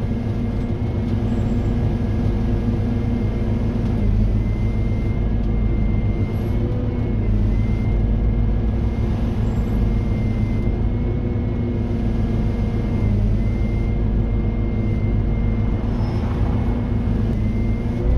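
Scania N230UD OmniDekka double-decker bus heard from the upper deck while in service: its five-cylinder diesel engine drones steadily, with a faint high whine coming and going above it.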